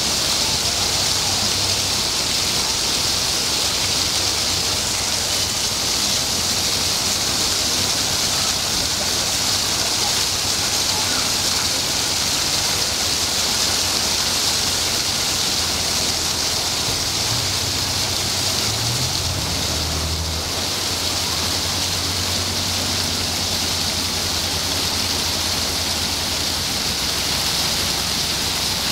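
Steady rush of water pouring through a canal lock. A low engine hum rises and steps in pitch for a few seconds past the middle, as a narrowboat's engine is run up.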